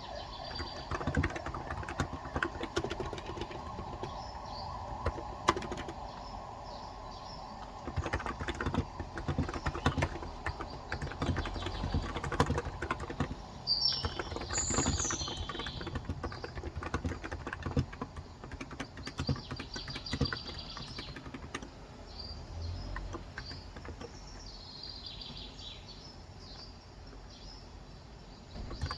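Typing on a Cox Endeavour electro-capacitive keyboard with 35 g keys: irregular soft key clicks that thin out near the end. Birds chirp in the background, most clearly about halfway through.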